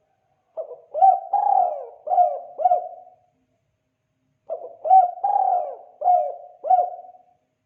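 Spotted dove (tekukur) cooing its 'kuk 2' call: two phrases of about five low coos each, a second and a half apart.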